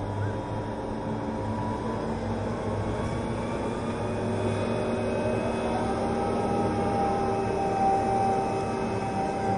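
Crane engine and winch running steadily as the bungee cage is lowered, with a faint whine that comes in and rises slightly in pitch about halfway through.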